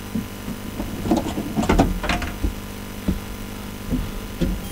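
Steady low hum with scattered knocks and rustles inside the stopped rally car's cabin, the loudest knocks about two seconds in.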